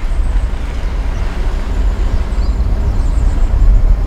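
A vehicle on the move: a steady, loud low rumble of engine and road noise that grows slightly louder.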